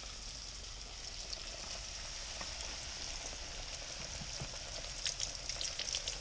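Breaded sea robin fillets deep-frying in a basket of hot oil: a steady sizzle, with crackling pops growing more frequent toward the end.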